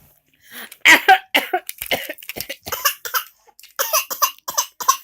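A rapid run of short coughs, about a dozen in quick succession, starting about half a second in.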